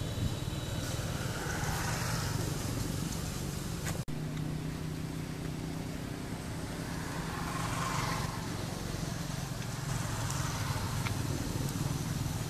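A motor running with a steady low hum, with two brief swells of hiss about two and eight seconds in; the sound cuts out for an instant about four seconds in.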